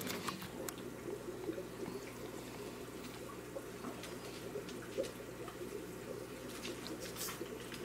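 Faint wet eating sounds: small scattered clicks over a steady low room hum, with one slightly louder tick about five seconds in.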